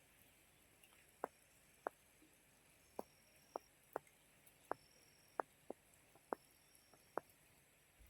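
Near silence broken by a series of short, sharp clicks at irregular intervals, about a dozen in all, with a faint high thin tone coming and going behind them.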